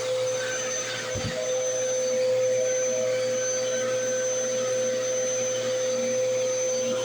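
Bissell CleanView Rewind 3534 bagless upright vacuum running steadily on the bedroom floor, its motor giving a steady whine. A brief low thump about a second in.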